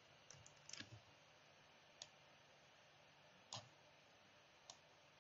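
Near silence with about five faint, isolated clicks at a computer, spaced irregularly across a few seconds.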